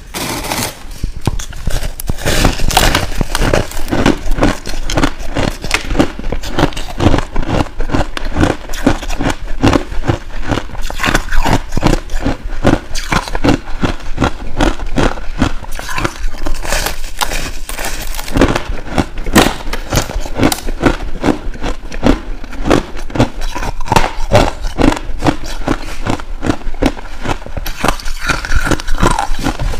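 Packed powdery ice being bitten and chewed close to a clip-on microphone: dense, rapid crunching, several crunches a second.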